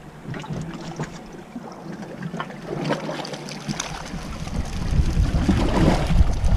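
Ambient sound aboard a small fishing boat: water washing against the hull, with scattered small knocks. A low rumble of wind on the microphone grows louder about two-thirds of the way in.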